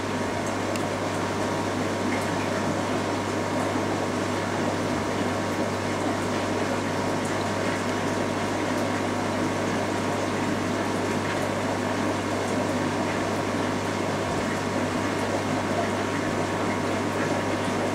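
Aquarium aeration: a steady low hum of an air pump under an even wash of bubbling water.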